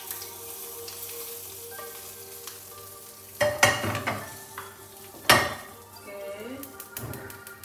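Fried anchovies being scraped out of a frying pan with a metal spatula, with a light sizzle of hot oil. Then two loud metal clanks, about three and a half and five seconds in: the pan being set back down on the gas hob's burner grate.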